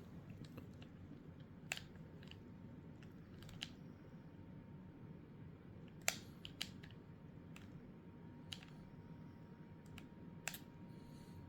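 Scattered small sharp clicks and taps, about eight spread over the stretch, over a low steady hum, with a faint thin steady tone in the background.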